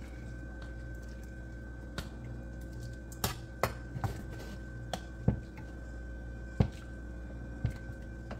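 Scattered light clicks and knocks of a utensil against a cooking pot, eight or so at irregular intervals, over a steady background hum with a faint high whine.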